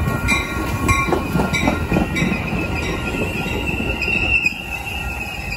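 Metra bilevel commuter cars rolling past close by, with a low rumble and regular clicks in the first couple of seconds. A high, steady squeal from the running gear grows stronger, then drops back with the overall loudness about four and a half seconds in.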